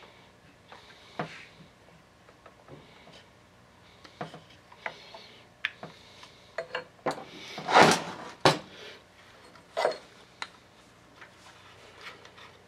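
Small chainsaw parts and hand tools being handled on a workbench: scattered clicks and knocks, with a short, louder clatter about eight seconds in followed by a sharp click.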